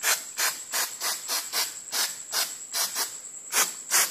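Aerosol can of plastic trim protectant spraying in short hissing bursts, about three a second, as the nozzle is pressed and released over and over.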